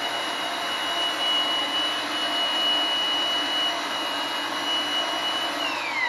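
RIDGID power pipe threading machine running steadily, its motor giving a high whine as the die cuts threads on the pipe. Near the end the motor is switched off and winds down, its whine falling in pitch, once the die has reached the end of the thread.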